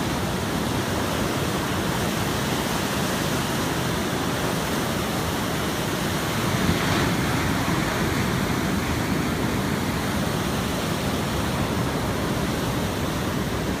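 Ocean surf breaking on the shore, a steady rushing noise that swells slightly about seven seconds in.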